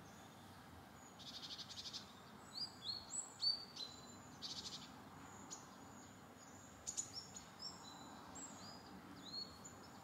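Small songbirds calling: scattered short high chirps and a couple of rapid trills, faint over a quiet background hiss.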